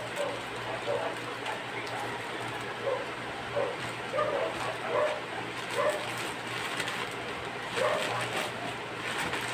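Plastic courier pouch crinkling and rustling as it is cut open with scissors and handled. Short, low calls repeat every second or so behind it, over a steady low hum.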